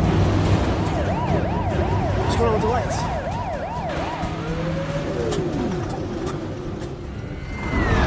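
Police car siren yelping, a fast up-and-down sweep about twice a second, over the low rumble of car engines; about four and a half seconds in, a slower siren tone rises and then falls away.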